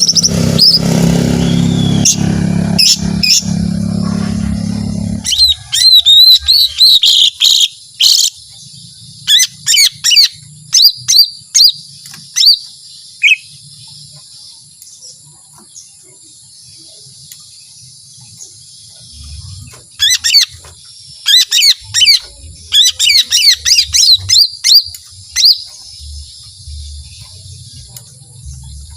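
Cucak ijo mini (a small green leafbird) singing in rapid, loud bursts of high, fast-changing notes, in three runs of phrases with a pause of several seconds in the middle. For about the first five seconds a loud low noise covers the recording.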